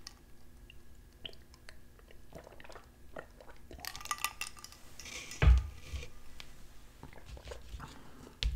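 Close-miked eating sounds: drinking from a glass of water and chewing, with small clicks and clinks of a fork on a ceramic plate. A single loud thump comes a little past halfway, and the fork works the plate again near the end.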